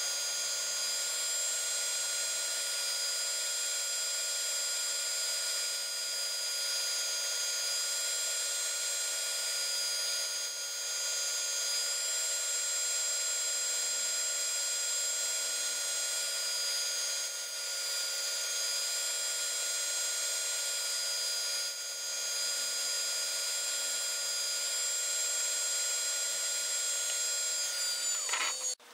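Small electric scroll saw running with a steady high whine as its fine blade cuts acrylic light-guide panel and epoxy resin; near the end the motor is switched off and the whine quickly falls in pitch and stops.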